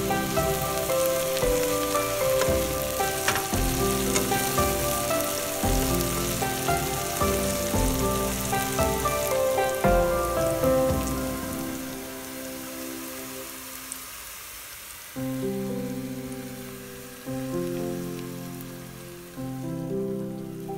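Diced green chillies sizzling as they fry in a pan, under background music of soft held notes. The sizzle fades after about twelve seconds, leaving mostly the music.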